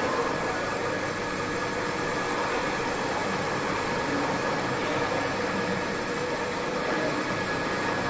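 Metal lathe running steadily with a steel bar spinning in the chuck: an even machine hum with a faint steady whine.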